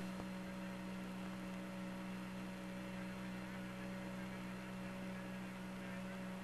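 Apollo 11 air-to-ground radio link left open with no voice on it: a steady low electrical hum with a few fainter steady tones above it and a faint hiss.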